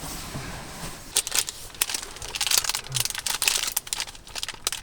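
Plastic snack wrapper crinkling and crackling as it is handled, in quick irregular crackles starting about a second in.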